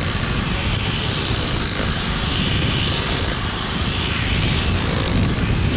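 Steady, loud rumbling noise with a hiss above it, with no distinct events.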